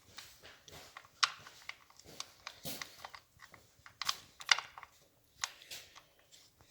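Irregular small clicks and scrapes of a threaded plug being worked back into its hole on a 1979 Triumph Bonneville 750, with sharper clicks about a second in and again near the middle.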